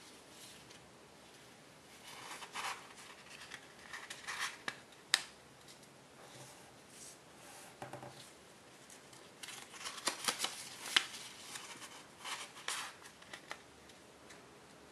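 Tissue foil origami paper being folded and creased by hand. It crinkles and rustles in irregular bursts, with sharp crackles about five and about eleven seconds in.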